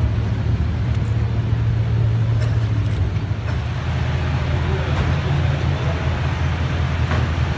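Supercar engine idling steadily, a low, even hum.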